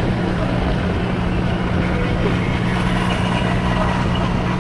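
Small farm tractor's engine running steadily while the tractor drives along, heard from on board: an even, unchanging low hum.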